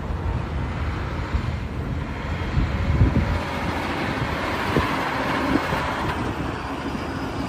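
Semi-truck pulling a loaded car-carrier trailer driving past on a road: engine rumble and tyre noise, with wind buffeting the microphone.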